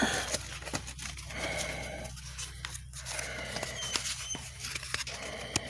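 Crinkling and scattered small clicks of plastic being handled and torn, as a replacement turn signal bulb is worked out of its packaging one-handed.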